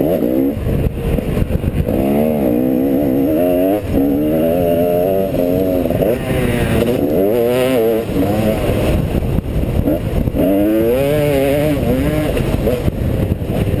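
Motocross bike engine revving hard, its pitch rising and falling again and again as the rider opens and shuts the throttle and shifts through the gears around the track. Heard from a helmet-mounted camera, over a rough low rush of wind and riding noise.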